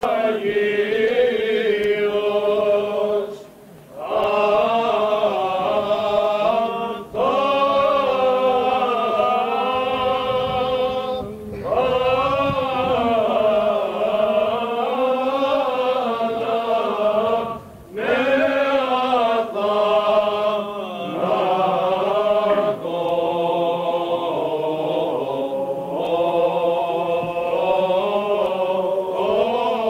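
Eastern Orthodox liturgical chant sung in long held phrases, with brief breaks about 3, 7, 11 and 18 seconds in.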